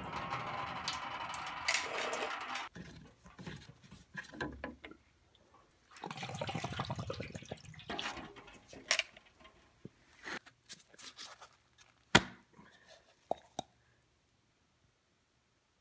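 Diesel fuel pouring and splashing out of a Duramax fuel filter housing as it is drained, in two spells, then dripping, with handling clicks and one sharp knock of the plastic housing.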